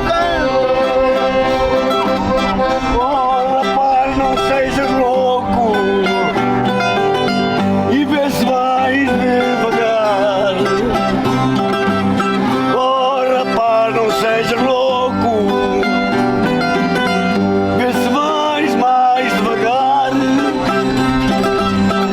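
Folk music played on plucked string instruments and accordion, with voices singing along.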